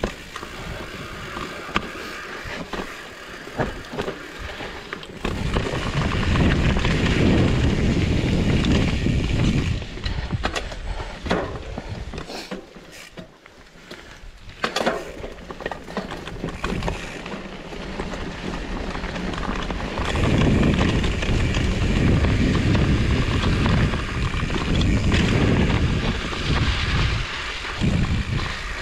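Trek Farley 7 fat bike ridden along a wet, muddy trail: tyre and trail noise with clicks and knocks over the ground, and a heavy low rumble from about five to ten seconds in and again from about twenty seconds in.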